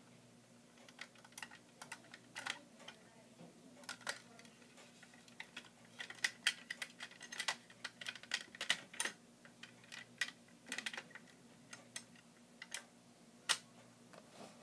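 Small clicks and snaps as fingers fold the retractable hardtop roof of a 1:18 scale Mercedes SL500 model and work its hinged trunk lid. The clicks come in quick clusters in the middle, with one sharper snap near the end.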